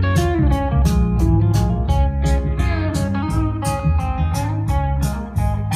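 Blues-style guitar music played back over home loudspeakers: guitar notes over a heavy bass line and a steady ticking beat.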